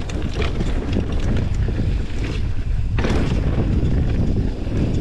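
Wind buffeting the microphone on a moving mountain bike, over tyres rolling on a dirt singletrack and frequent short clicks and rattles from the bike, with one louder knock about three seconds in.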